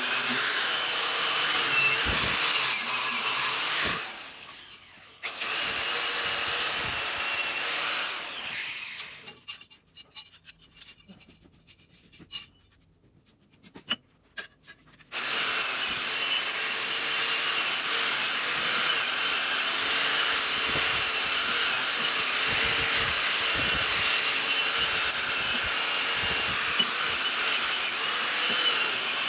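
Angle grinder clamped in a bench vise, running with a high whine while a metal part is pressed against its spinning wheel, its pitch wavering as the load changes. It drops out briefly about four seconds in. About eight seconds in it winds down, leaving several seconds of near silence with a few clicks, and starts running again about fifteen seconds in.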